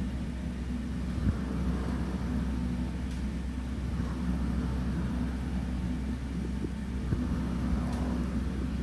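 A steady low rumble with a few faint clicks.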